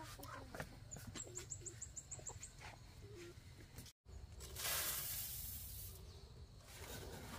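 Unhusked rice grain scooped from a sack with a small ceramic bowl and poured into a plastic basket: a dry rushing hiss of falling grain lasting about a second, then a shorter one. Before that, a bird chirps about eight times in quick succession.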